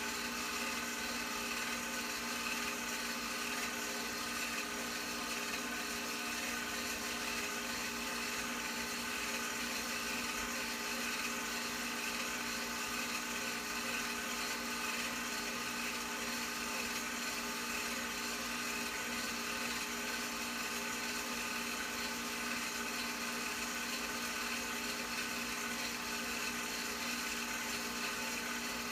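Home-movie film projector running: a steady mechanical whir with a constant hum and no change in pitch or level.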